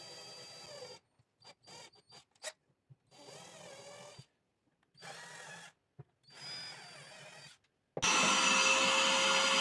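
An electric drill runs in several short bursts a second or so long, its motor whine rising and falling as holes are drilled in the drawer's wood, with a few short clicks between runs. About eight seconds in, a vacuum cleaner switches on, much louder and steady, to suck up the drilling shavings.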